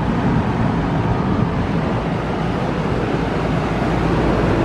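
Rheem Classic central air conditioner condensing unit running just after startup: the Copeland scroll compressor hums low beneath the steady rush of air from the condenser fan, which has a Gentech motor.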